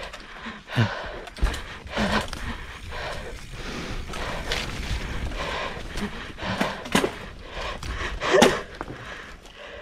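Mountain bike clattering and knocking over rocks and roots on a rough dirt trail descent, with irregular sharp jolts, the hardest about a second in and near the end, over a low rumble of wind on the microphone.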